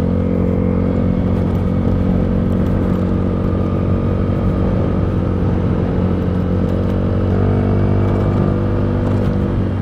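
Yamaha Mio Sporty scooter's single-cylinder four-stroke engine running steadily at cruising speed, through an aftermarket chicken-pipe exhaust. The engine note shifts slightly and grows a little louder about seven seconds in.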